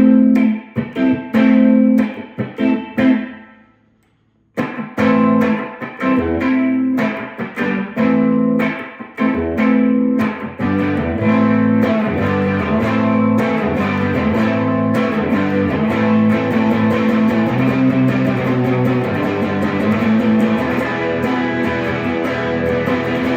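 1960s Klira Triumphator electric guitar with three original Schaller pickups, played through an amplifier. Picked chords and single notes stop briefly about four seconds in, then resume and settle into steady strummed chords.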